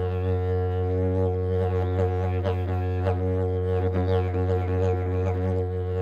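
Wooden didgeridoo played as an unbroken low drone, its overtones shifting and gliding, with short rhythmic accents scattered through it.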